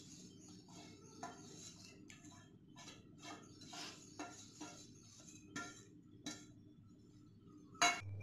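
Fingers scraping spices and chopped coriander off a stainless steel plate into a steel bowl: faint scrapes and light taps of metal. Near the end comes one louder clink as the steel plate is set down on the counter.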